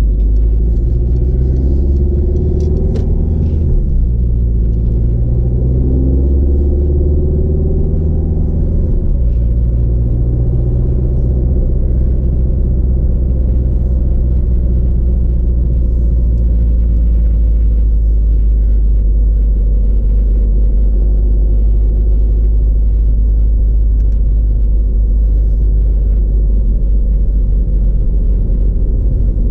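A car's engine and road noise heard from inside the cabin. Over the first several seconds the engine pitch rises and falls as the car pulls away and changes gear, then it settles into a steady low rumble at cruising speed.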